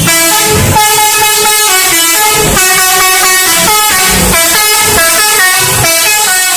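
Indonesian bus 'telolet' musical air horn playing a long melody: loud chords of horn tones stepping quickly from one pitch to the next.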